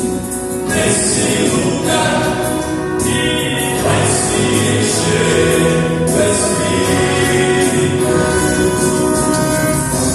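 A vocal quartet singing a gospel hymn in close harmony over instrumental accompaniment, with long held chords.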